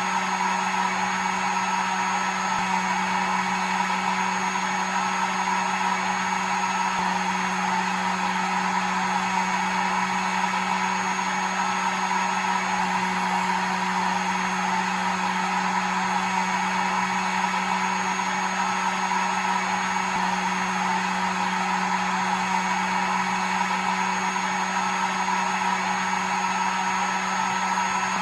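Hair dryer running steadily: an unbroken rush of air over a constant low motor hum.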